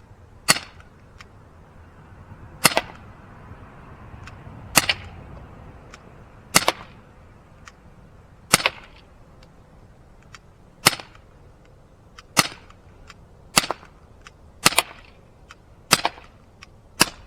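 Umarex Glock 19 CO2 BB pistol firing single shots, about eleven sharp cracks one every second or two, coming quicker toward the end, with faint small ticks between them.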